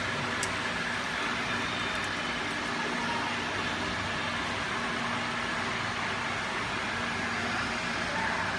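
Steady hiss and hum of a CO2 laser cutting machine running, with a faint low steady tone under it.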